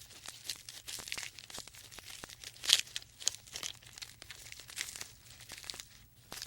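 Faint, irregular crackling and rustling, a scatter of small clicks with one slightly louder snap about three seconds in.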